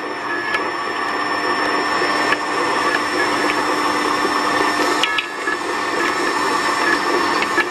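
Electric winch motor and its reduction gearing running steadily with a constant whine, turning the steel wire rope drum, with light clicks every second or two.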